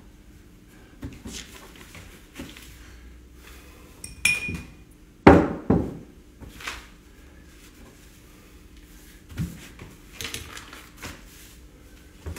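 Light clinks and knocks of a glass and other tableware being handled on a table, with a short ringing clink about four seconds in and two louder thuds just after five seconds.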